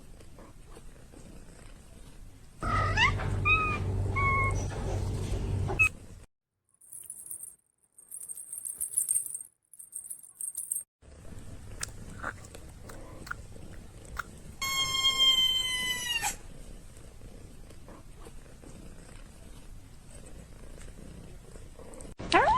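Kittens mewing: a few short, high chirping mews over a low rumble, then one long, high-pitched meow about fifteen seconds in.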